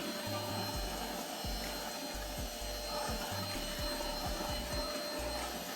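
DEVOAC N300 cordless stick vacuum running steadily, a constant motor hum and whine with airflow hiss. Background music with a bass line plays underneath.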